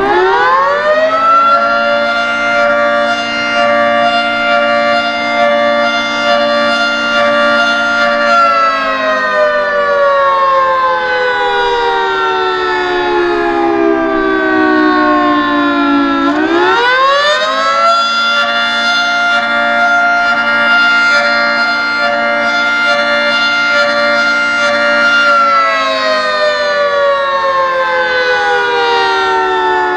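Federal Signal 3T22 dual-tone electromechanical fire siren sounding a slow wail. It winds up quickly to a steady two-note chord and holds it for about seven seconds, then winds down slowly over about eight seconds. It climbs quickly again, holds, and starts falling again near the end.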